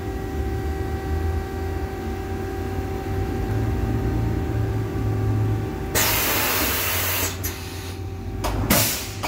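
Hardinge XR700 vertical machining center running with a steady hum during an automatic tool change. About six seconds in, a hiss of air lasts about a second, and a few shorter hisses follow near the end.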